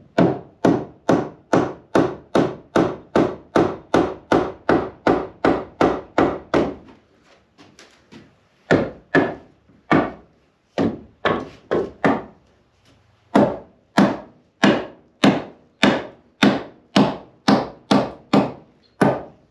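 Rapid, even wood-on-wood blows, about three a second, knocking old salvaged timber handrail pieces into their tight-fitting notched joints. The blows break off for about two seconds near the middle, then resume at the same pace.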